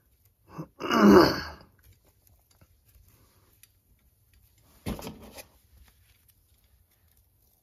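A man clears his throat about a second in. Faint ticks of plastic mesh are handled around the lure blank, and a single knock comes about five seconds in.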